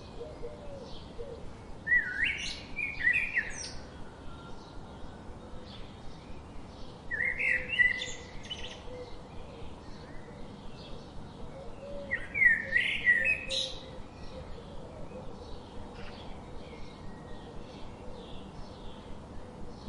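A songbird singing three loud, complex song phrases about five seconds apart, each lasting about a second and a half. Behind it other birds keep up a steady run of faint, evenly repeated chirps.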